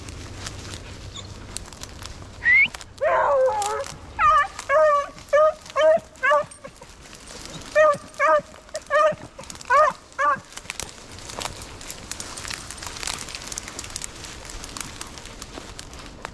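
Hunting beagles yelping in the brush: a brief high squeal and a longer call, then about a dozen short, sharp yelps in quick clusters over several seconds.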